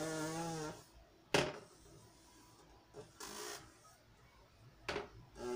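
A brief drawn-out vocal hum, then a whiteboard marker drawing on the board: a short scratchy rubbing of the tip and two sharp taps against the board.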